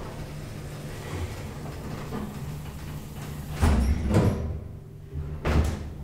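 1968 KONE traction elevator doors sliding shut, with two loud clunks about a second and a half apart over a low steady hum.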